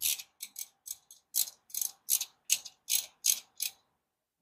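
Hand socket ratchet clicking in short, quick strokes, about three a second, with about a dozen strokes that stop shortly before the end.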